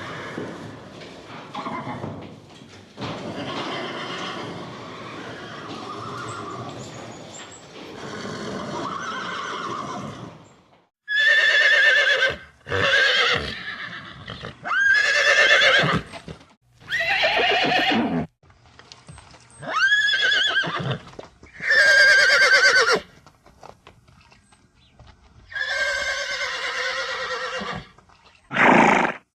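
A pony whinnying: about eight separate neighs, each roughly a second long, with sliding, falling pitch. They are preceded by about ten seconds of noisy, unpitched sounds.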